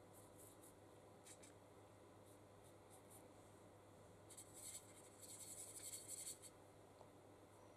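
Faint scratchy swishing of a paintbrush working grey acrylic primer around a metal palette well, a flurry of quick strokes about halfway through; a few lighter brush strokes before it.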